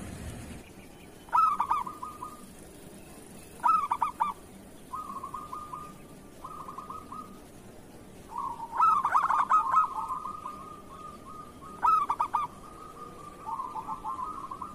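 Zebra doves (perkutut) cooing: loud bursts of rapid, trilled coos about four times, with softer trilling coos between them and overlapping calls near the middle.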